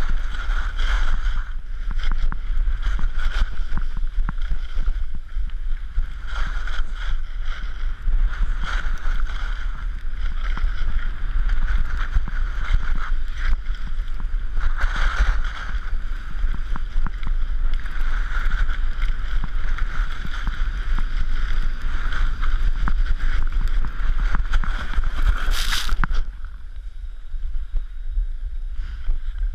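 Wind buffeting the camera microphone, mixed with the hiss and scrape of skis on packed snow during a fast run down a ski slope. Near the end it breaks off suddenly to a quieter rush.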